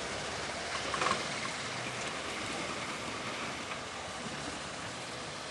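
Four-wheel-drive truck's engine running at low revs as it crawls up a rutted dirt slope, under a steady rushing noise, with a brief louder knock about a second in.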